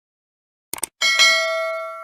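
Two quick clicks, then a bus stop-request bell dings, struck twice in quick succession and ringing on for over a second.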